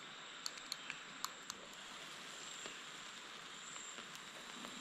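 A metal fork clinking against a glass bowl while beating eggs: five light clicks in the first second and a half, then only a faint steady hiss.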